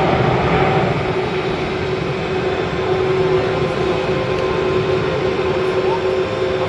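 Jet engines of a Boeing 777 airliner at takeoff thrust as it climbs out: a loud, steady rush of noise with a steady droning tone running through it.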